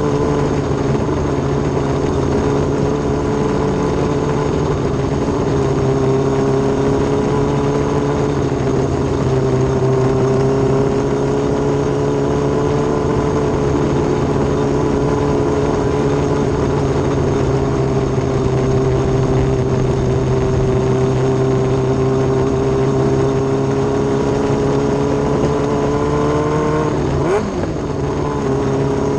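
Micro sprint car's Yamaha R6 inline-four motorcycle engine at racing speed, heard from onboard, holding a fairly steady high pitch through the turns. Near the end the revs drop sharply for a moment and come straight back up.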